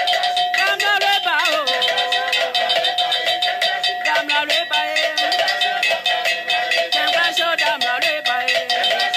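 Singing voices over fast, even percussion strikes, with a steady held tone underneath. The voices rise and fall twice, about a second in and again near the end.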